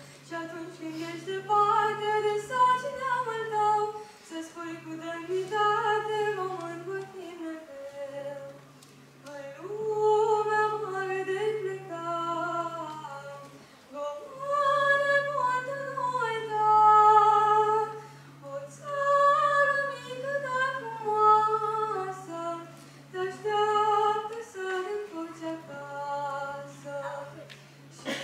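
A boy singing a song into a handheld microphone, in sung phrases with short breaths between them.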